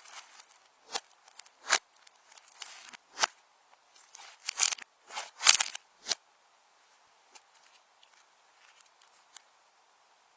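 Slime being squished and worked by hand, giving irregular sticky clicks, pops and crackles, loudest over the first six seconds and then only faint scattered ticks.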